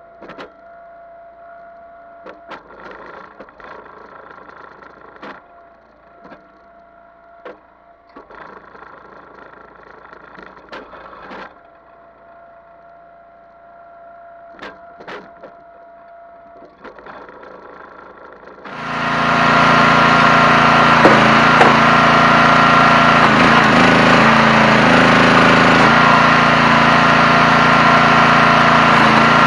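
Engine of a 37-ton hydraulic log splitter running, at first faint under sharp knocks of split ash pieces being handled and a whine that comes and goes. About two-thirds of the way in it turns suddenly loud and close, running steadily.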